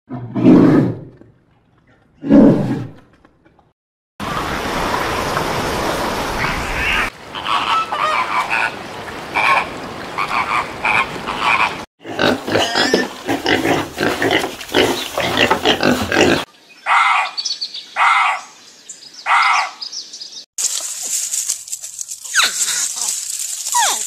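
A run of different animal sounds cut together. It opens with two loud, low grunts from brown bears about two seconds apart. Shorter calls and chatter follow, including four evenly spaced calls about two-thirds of the way through, and a steady high hiss near the end.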